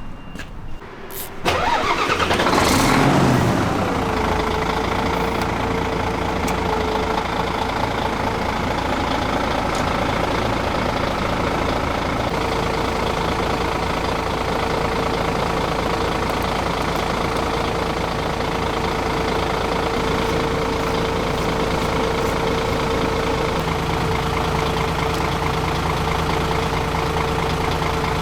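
A large truck's diesel engine cranks and starts about a second and a half in, briefly rises in revs, then settles into a steady idle with a constant whine over the rumble.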